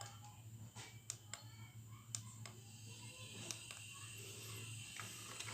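Scattered light clicks and taps from small plastic nano spray units being handled, over a faint steady low hum.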